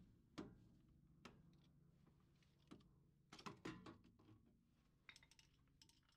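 Faint scattered metal clicks and taps from a screwdriver working against a transfer case's front output flange: single knocks at first, then quick clusters in the middle and near the end.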